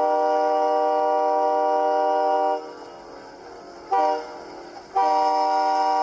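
Multi-tone train horn sounding a steady chord: a long blast that stops about two and a half seconds in, a short blast about a second later, then another long blast from about five seconds in.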